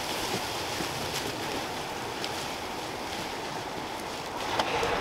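Steady rustling of dry leaf litter as a shot wild boar is dragged over the forest floor, with a few faint clicks along the way.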